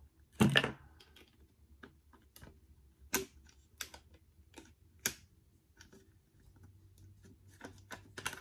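Clicks and clacks of a CZ 452 bolt-action rimfire rifle being handled and its bolt and action worked: one sharp click about half a second in, then scattered lighter clicks, coming quicker near the end.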